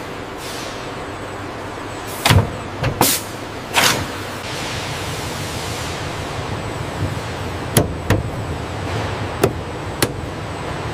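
Assembly-plant background noise with about eight sharp clunks and clicks of parts being fitted, the loudest bunched a couple of seconds in.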